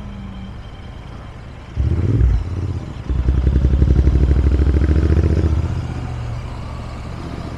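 Royal Enfield Interceptor 650's parallel-twin engine and exhaust: a brief burst of throttle about two seconds in, then a louder pull for a couple of seconds as the bike gets going, settling back to a lower, steady running sound near the end.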